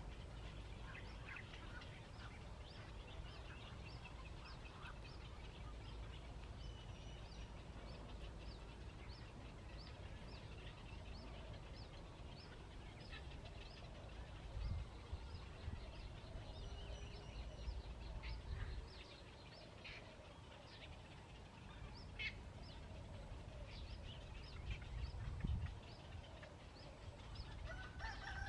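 Bird calling: a long run of short high chirps repeated about twice a second, over a low wind-like rumble that swells briefly in the middle and near the end.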